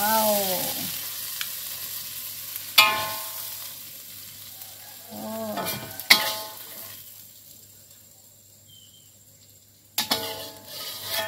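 Metal spatula scraping and knocking against a metal wok while stir-fried papaya shoots are scooped out onto a plate; the wok rings after each of three sharp knocks. Underneath, the sizzle in the pan fades away with the heat turned off.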